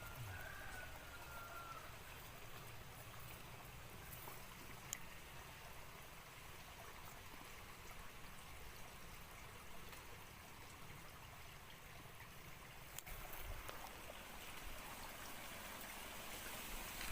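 Water of a small river flowing steadily, a faint even trickling rush.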